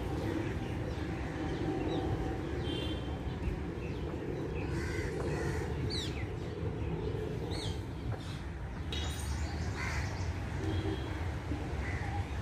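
Birds calling now and then: a few harsh calls and some quick high chirps over a steady low rumble.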